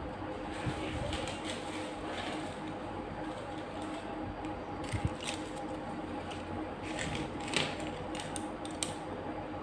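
Wooden popsicle sticks clicking and tapping as they are handled and laid down on a cloth-covered table, in scattered light knocks that cluster toward the end, over a steady background hum.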